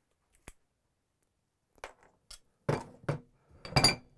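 Channel-lock pliers working an old flow regulator out of a brass pipe fitting, metal on metal: a few faint clicks, then louder sharp metallic clatters near the end.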